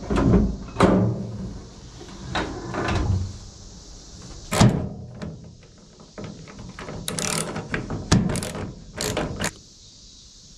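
Irregular metallic knocks, clanks and rattles of a hand tool working on a pickup truck's tailgate and tail-light housing, with background music underneath.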